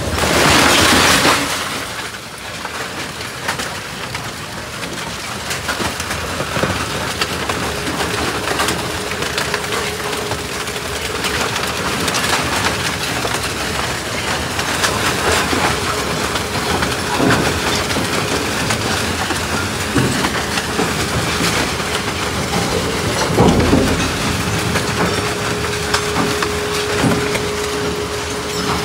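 Industrial scrap-metal shredder running: a dense, continuous clatter and rattle of steel scrap being torn up, over a steady hum. A loud rushing burst comes in the first second or so, and a heavy thump about 23 seconds in.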